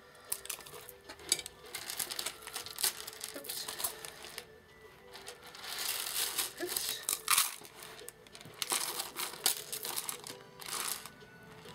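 Rustling and crinkling in repeated short bursts as hands handle fabric, lace trim and packaged craft trims, loudest about six to seven seconds in, over faint background music.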